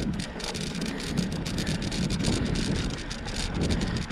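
Wind buffeting the microphone as a bicycle rolls along a dirt trail, with a low rumble and frequent small clicks and rattles from the bike over the bumps.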